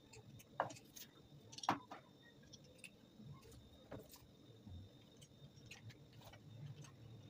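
Metal garlic press clicking and clacking as it is squeezed and handled over a plastic bowl: scattered light clicks, with two sharper ones within the first two seconds.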